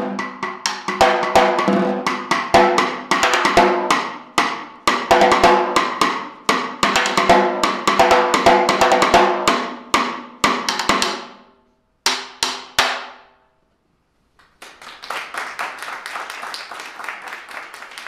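Concert snare drum played with sticks as a solo: fast strokes and rolls with the drum's ringing tones, ending about twelve seconds in with a few last separate strokes. After a second of silence, applause starts and runs on.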